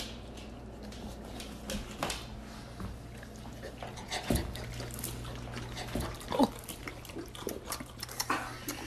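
Rottweilers licking and smacking their mouths at a sour lemon wedge: short wet clicks scattered here and there, over a low steady hum.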